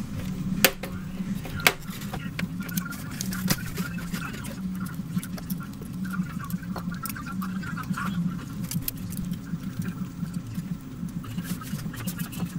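Scattered small clicks and taps of tools and small parts being handled during a tablet repair, over a steady low hum. A few sharper clicks stand out in the first two seconds.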